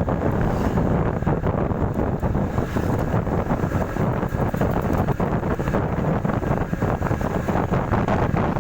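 Wind buffeting the microphone while riding a motorcycle: a steady, loud low rush of wind noise, with the motorcycle's running underneath it.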